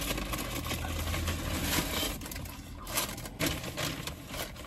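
Close crunching and rustling while eating: chewing a crispy fried chicken burger and handling its paper packaging, as a dense crackle with a few sharper clicks.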